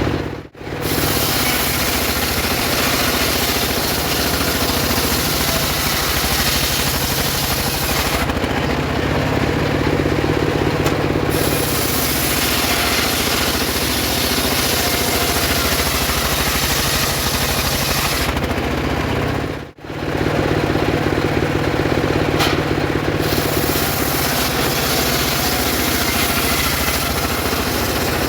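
Homemade circular sawmill running and ripping sengon wood: a steady, dense mechanical din of the motor and spinning blade. It breaks off for an instant twice, and for a few seconds at a time the high hiss thins out.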